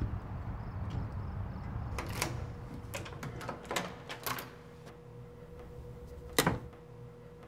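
A door lock and lever latch clicking several times as a door is unlocked and opened, then one loud sharp click of a wall toggle switch being flipped near the end.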